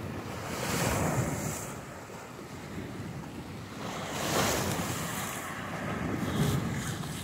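Sea waves washing and splashing against a rocky concrete seawall, swelling about a second in and again around four seconds, with wind buffeting the microphone.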